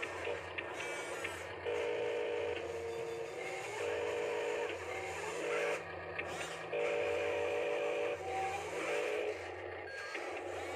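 Small electric gear motors of a Huina radio-controlled toy wheel loader whining in stop-start spurts of about a second as it drives over dirt.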